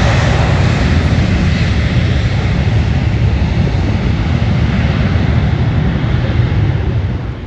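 Loud engine noise of an airliner passing close by on the runway, fading slowly and then dropping off sharply near the end.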